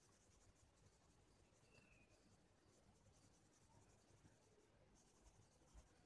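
Near silence, with faint scratching of an oil pastel crayon being rubbed back and forth on cartridge paper.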